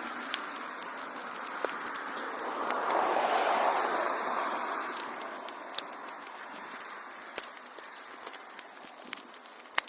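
Wood fire in a fireplace crackling, with many scattered sharp pops and one louder pop near the end. A soft rush of flame noise swells about three seconds in, then eases off.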